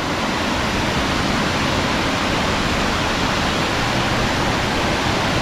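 Overflowing water rushing steadily.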